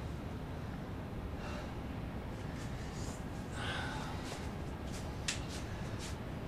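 A man's breathing over a steady low hiss: a couple of soft breathy exhales, the strongest about three and a half seconds in, and a few sharp clicks near the end.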